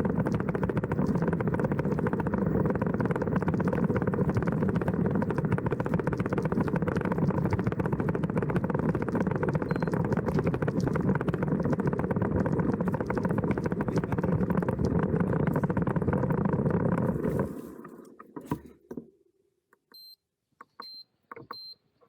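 Steady road and wind noise of a moving vehicle, with no clear engine note, that cuts off suddenly about seventeen seconds in. Near the end come three short high-pitched beeps about a second apart.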